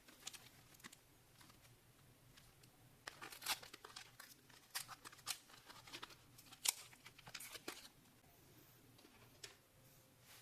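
Faint handling noises from working on a laptop: scattered light clicks and short crinkly rustles, busiest in the middle, with one sharper tick about two-thirds of the way through.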